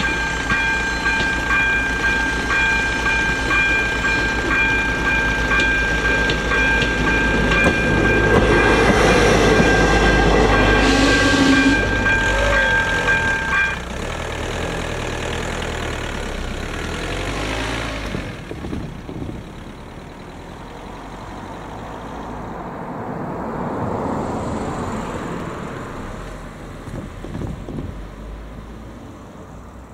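Level-crossing warning bell (AŽD 97 crossing with ZV02 electronic bell) ringing steadily over the rumble of a ČD class 814 RegioNova diesel railcar passing over the crossing. The bell cuts off suddenly about 14 s in as the crossing clears, and the train's rumble fades out a few seconds later. A road vehicle then passes near the end.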